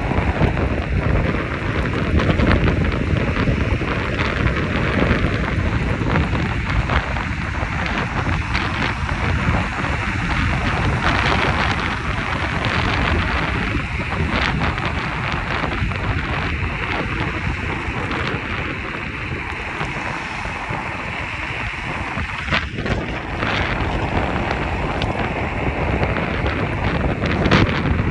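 Wind buffeting the microphone: a steady, loud rushing rumble.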